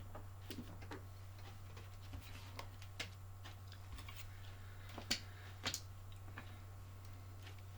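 Scattered light clicks and taps of small parts being handled on a workbench, irregular, with two louder clicks about five seconds in, over a steady low hum.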